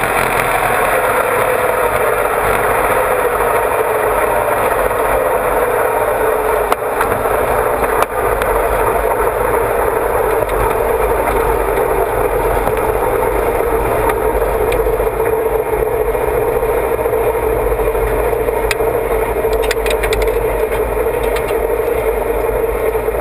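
Big-block Ford V8 in a dragster heard from on board, its revs falling over the first few seconds and then settling into a steady low-speed run as the car rolls along, with chassis rattle and wind noise. Two sharp knocks come a second or so apart about a third of the way in.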